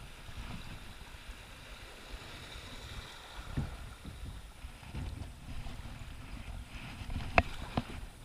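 Kayak being paddled, heard as a muffled low rumble of water and wind through a sealed action-camera housing. A few sharp knocks come through, the loudest about seven seconds in.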